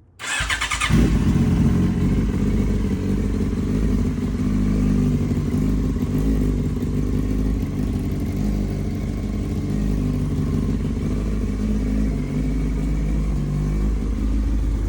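Yamaha R6S's 600 cc inline-four engine started on the electric starter, catching within about a second and then idling steadily. It is a cold start after about two weeks unused, with the engine left to warm up before it is revved.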